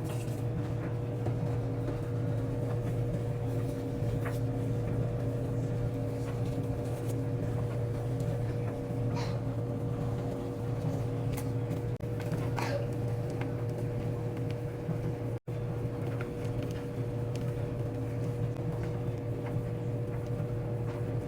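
A steady machine hum with a constant mid-pitched tone over a low drone, like an appliance or fan motor running. A few brief soft noises sound over it, and the hum cuts out for an instant about two-thirds of the way through.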